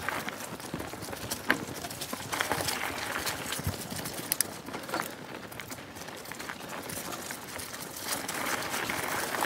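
Mountain bike riding along a dirt single-track trail: tyres rolling with a steady rustling hiss, broken by many sharp clicks and rattles and a few louder knocks as the bike jolts over the ground.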